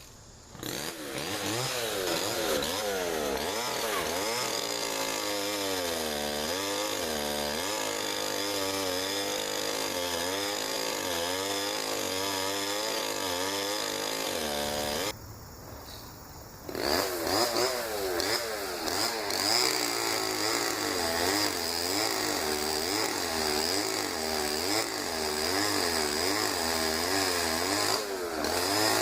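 Chainsaw cutting through a limb of a dead oak, its engine pitch rising and falling as it works in the cut, with a short drop about halfway through before it picks back up.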